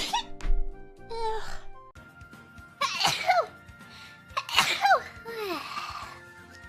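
A string of young women's sneezes, one after another, several ending in a high 'achoo' that falls in pitch, over faint background music.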